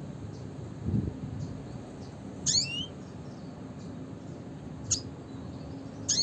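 Red siskin calling: faint short high chirps, one twisting high call about two and a half seconds in, and a short sharp note near five seconds, over a steady low rumble with a dull thump about a second in.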